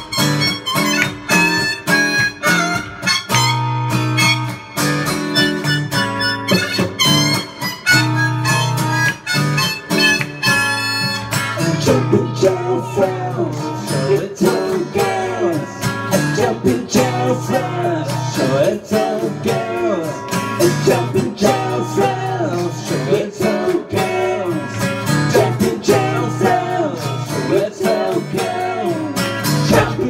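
Harmonica played over a strummed acoustic guitar. About twelve seconds in the harmonica gives way to a voice singing over the guitar.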